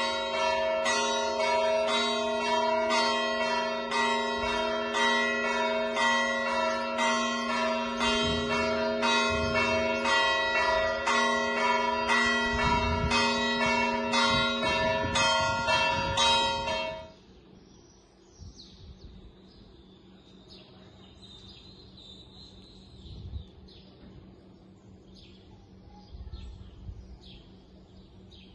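Church bells ringing from the tower in rapid repeated strikes, then cutting off abruptly about seventeen seconds in. After that, birds chirp quietly in short high calls.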